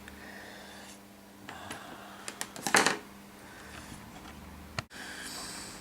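A few short, sharp clicks from a multimeter's rotary selector dial being turned from the millivolt range to the volt range, over a faint steady hum.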